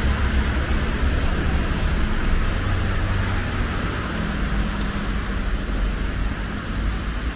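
Road traffic on a wet city street: a vehicle engine hums steadily under a constant hiss of tyres and rain.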